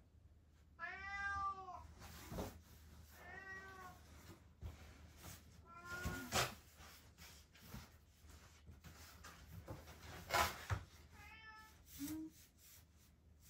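A domestic cat meowing several times: a drawn-out meow about a second in, then shorter ones around three, six and eleven seconds in. A few sharp taps fall between the meows, the loudest about ten seconds in.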